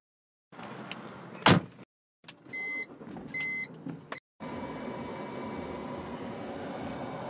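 BMW Z4's air conditioning blowing through the dash vents: a steady rush of air with a faint even hum, starting about four seconds in. Before it comes a sharp click, then two short pairs of high electronic beeps.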